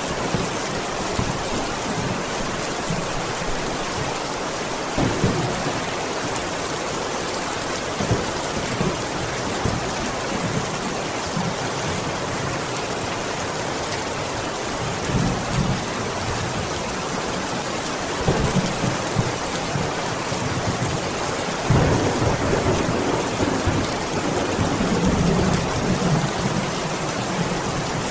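Heavy rain falling in a steady, even hiss, with low rumbles swelling under it several times, the longest near the end.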